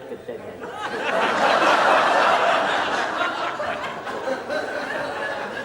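Audience laughing, swelling about a second in and then slowly dying away.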